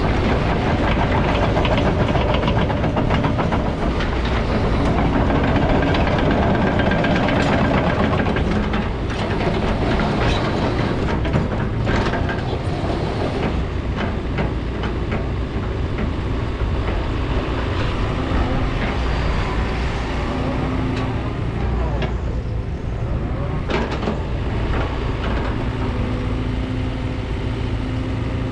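JCB JS131 LC hydraulic excavator running under load: a steady diesel engine with many metallic clanks and squeaks, like steel tracks and linkage working. A steady whine comes in and out in the second half.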